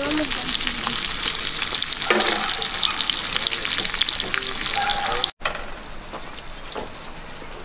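Steak frying in grease in a cast-iron skillet: a dense, steady sizzle full of fine crackles and spits. About five seconds in it cuts out for an instant and comes back quieter.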